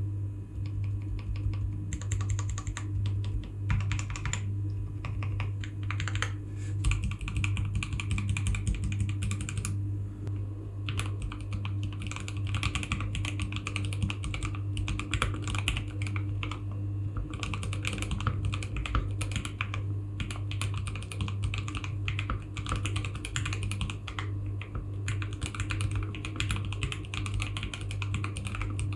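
Typing on an Akko ACR75 mechanical keyboard fitted with Akko Jelly Pink linear switches, blank ePBT keycaps and Everglide Panda V3 stabilizers: quick runs of key presses with a deep clack, broken by brief pauses. A steady low hum sits underneath.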